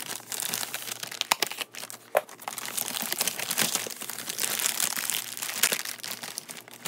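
White plastic poly mailer crinkling and rustling as it is opened and a box is pulled out of it, with dense crackling and a couple of sharper crackles in the first few seconds.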